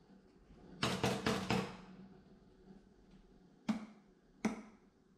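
Sharp clicks in a small room: four in quick succession about a second in, then two single ones near the end, each with a short ring after it.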